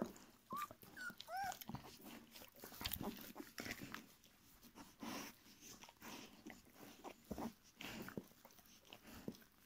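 Two-week-old puppies giving a few short, high whimpering squeaks in the first second and a half, then faint rustling and small clicks as they shuffle and nuzzle on a blanket.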